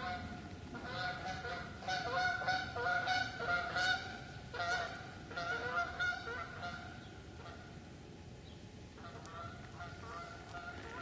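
Geese honking, many calls overlapping. The calls die down about seven seconds in, and fainter honks return near the end.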